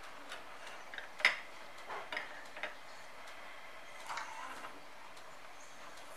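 Scattered light clicks and clacks of plastic toy kitchen dishes and utensils being handled and set down, with the sharpest tap about a second in and a short cluster of small rattles near four seconds in.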